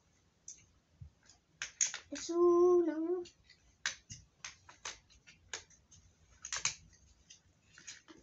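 Scattered sharp clicks and taps of metal parts and tools being handled on a workbench's metal frame as it is screwed together. A short hummed note, about a second long, comes about two seconds in.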